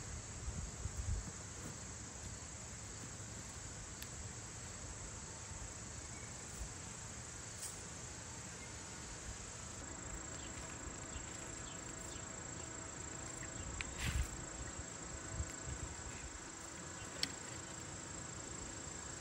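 Insects such as crickets trilling steadily in a high, continuous tone, with a few soft knocks in the second half.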